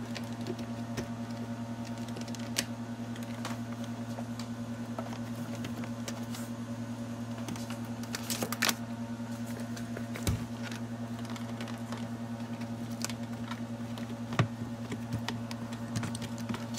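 Power wire being fished under plastic door-sill trim: scattered light clicks and rustles of cable and trim over a steady low hum.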